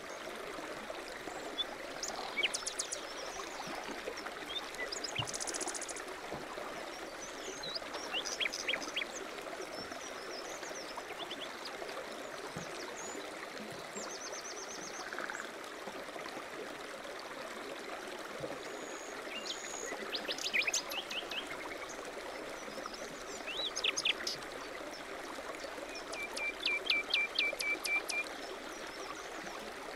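Small birds singing over a steady running stream: short trills and quick runs of chirps scattered throughout, the loudest about two-thirds through and near the end.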